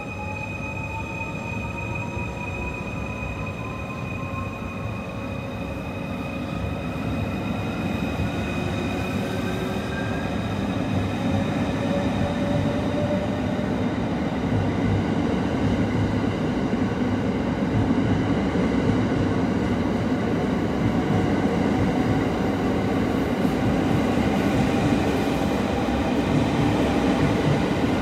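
JR 285 series Sunrise Express sleeper train pulling out, its electric traction drive whining and rising steadily in pitch over the first dozen seconds as it picks up speed. The rumble of the cars rolling over the rails grows louder as they go by.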